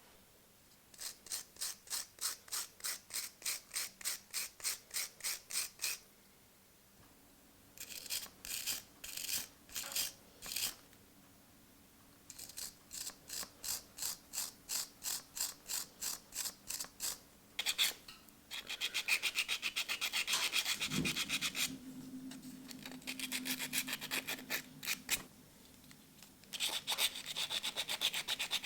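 Hand-worked abrasive strokes on the metal rasp during its restoration, a hissy rubbing at about three strokes a second in short runs. Later the strokes turn into faster, continuous scrubbing.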